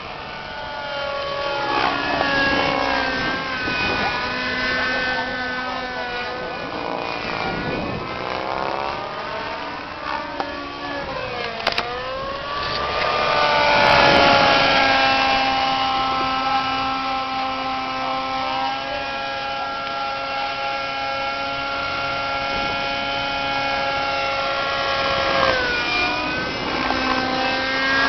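Thunder Tiger Raptor radio-controlled helicopter flying aerobatics: a steady high whine from its motor and rotors, sliding up and down in pitch as it turns and passes. It is loudest about halfway through, on a low close pass. A deep, wind-like rush of the main rotor comes at the start of manoeuvres, the sound of the blade pitch changing while the rotor speed stays constant.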